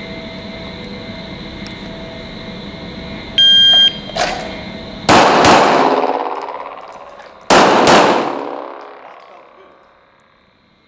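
A shot-timer start beep, then a 9x19mm Glock 17 pistol fired in two quick pairs, the shots in each pair under half a second apart and the pairs about two and a half seconds apart, with the shooter moving between them. Each shot rings out in a long echo off the indoor range's walls.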